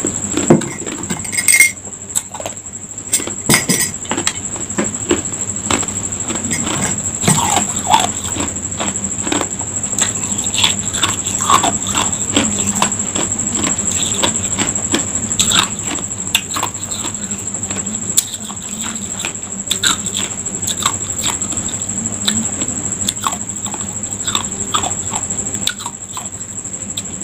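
Ice cubes being crunched and chewed close to the microphone: irregular crisp cracks and crunches, a few every second, with a steady high-pitched whine behind them.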